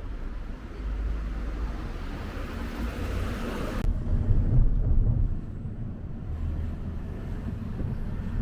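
Outdoor ambience with wind rumbling on the microphone. A steady hiss that sits over the rumble stops abruptly about four seconds in.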